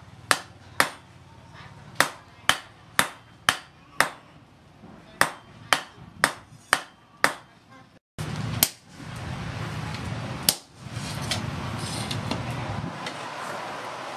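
Hand hammer striking a red-hot steel sword blade on a steel stump anvil: a dozen sharp ringing blows, about two a second in short groups. Then two heavier single blows on a handled set tool held against the blade, over a steady background noise.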